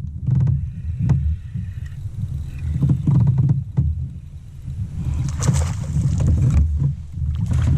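Low rumbling wind and handling noise on the microphone, with knocks and a brief rush of noise about five seconds in, as a hooked bass is fought beside a fishing kayak.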